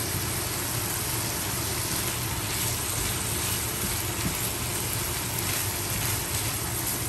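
Sliced hotdogs and ham sizzling steadily in a frying pan over high heat, with soft stirring from a silicone spatula.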